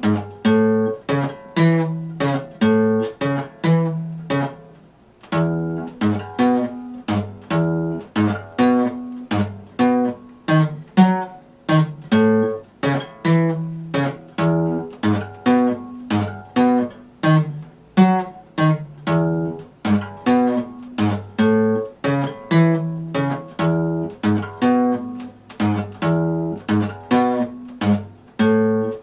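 Epiphone acoustic guitar strummed in a steady rhythm, the chords changing every second or two.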